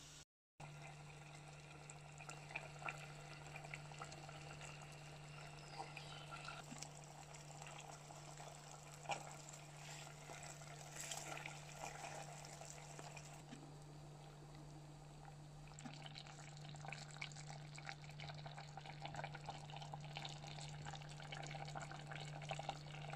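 Pot of stew simmering on a stovetop: faint bubbling with many small pops and crackles over a steady low hum.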